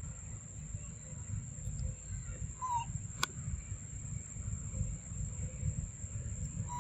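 Forest ambience with a low rumble and a thin, steady high-pitched whine. A short call sounds about two and a half seconds in and again at the end, and a single sharp click comes about three seconds in.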